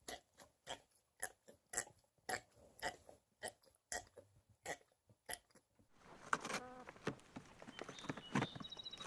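An animal chewing: short crunching bites at about two a second. About six seconds in the sound changes to a noisier background with a brief pitched call.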